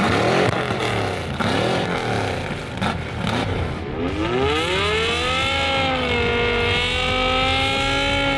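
BMW M5's V10 engine revving hard under load in a tug of war, with several quick rises in pitch, then about four seconds in a long climb to high revs that is held steady.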